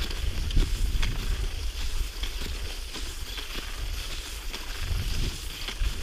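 Wind buffeting the microphone in a low, steady rumble, with scattered soft knocks.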